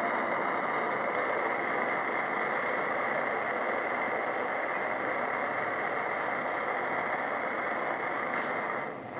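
Open charcoal fire burning under a test rig, a steady even noise with a grainy texture that dips briefly near the end.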